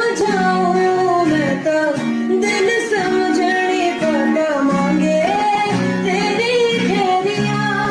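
A solo voice singing a slow Hindi song melody with gliding, ornamented notes over guitar accompaniment.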